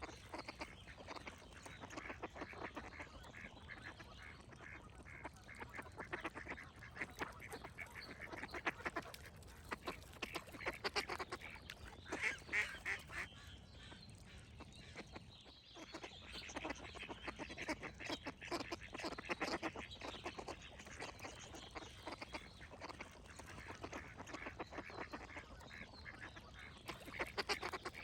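A flock of ducks quacking continuously, many calls overlapping, with a short lull about halfway through.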